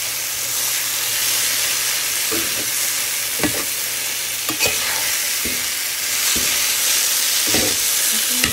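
A thick soybean, potato and banana paste frying with spices in mustard oil in an iron pan, stirred with a spatula: a steady sizzle with a scrape of the spatula on the pan every second or so, as the mixture's water cooks off.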